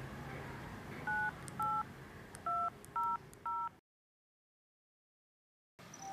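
Mobile phone keypad touch tones: five short dual-tone beeps as a number is dialed, at an uneven tapping pace.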